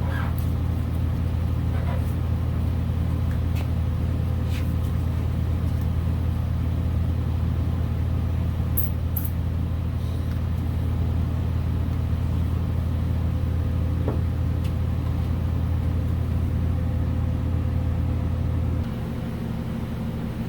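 Steady low machine hum with a faint higher tone over it, dropping in level near the end, with a few light clicks and taps of work on top.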